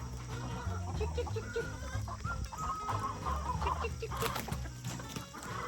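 A flock of backyard chickens clucking in short, repeated calls as they crowd in to eat a treat, with a few sharp clicks about four seconds in.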